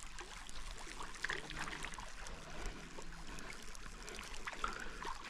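Shallow river water trickling and gurgling over rocks, with many small splashes.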